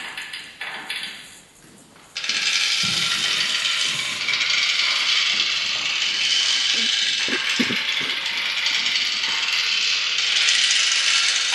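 Live electroacoustic sound: a dense, grainy, clicking noise texture. It dies away and cuts to near silence, comes back abruptly about two seconds in and then holds steady, with a few low thuds in the middle.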